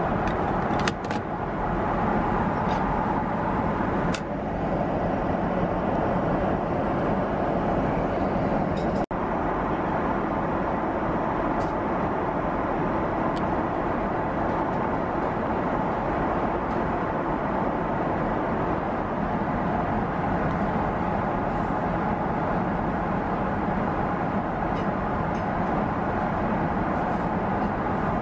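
Steady in-flight cabin noise of a Boeing 777: an even rush of engine and airflow, with a few faint clicks near the start and a momentary break about nine seconds in.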